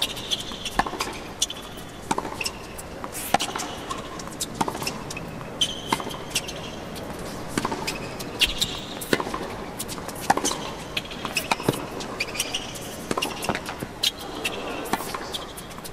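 Tennis rally on a hard court: sharp pops of the ball being struck by rackets and bouncing, going back and forth about once or twice a second, with short high squeaks of shoes on the court.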